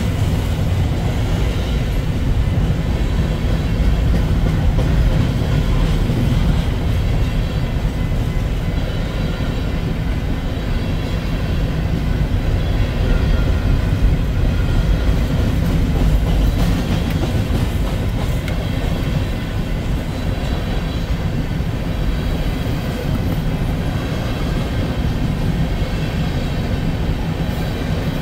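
Freight train of covered hopper cars rolling past: a steady, continuous rumble of steel wheels on the rails.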